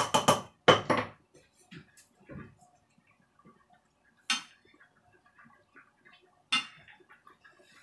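Kitchen clatter: a lid knocking down onto a container in the first second, then a metal spoon scraping and tapping in a frying pan of curry, with two sharp clinks of the spoon on the pan about four and six and a half seconds in.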